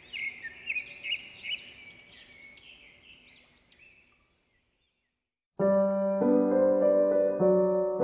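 Bird song: a run of short, high, arching chirps that fades out about four seconds in. After a second of silence, piano music comes in with sustained chords, louder than the birds.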